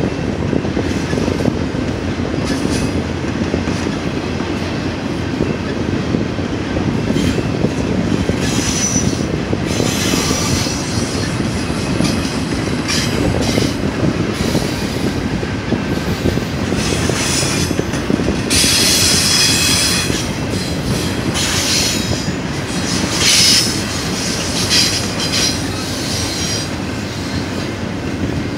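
BNSF double-stack intermodal container train rolling past: a steady rumble and clatter of steel wheels on rail. Bursts of high-pitched wheel squeal come through at times; the longest is about two-thirds of the way in and another is near 23 seconds, as the wheels round the curve.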